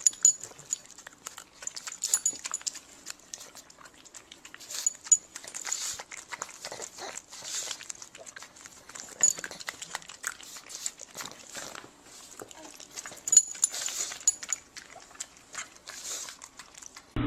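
A dog making short, irregular sounds, mixed with many small clicks and knocks.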